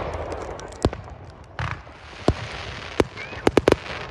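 Aerial fireworks bursting in sharp bangs over a steady crackle. Single reports are spaced about a second apart, then three come in quick succession near the end.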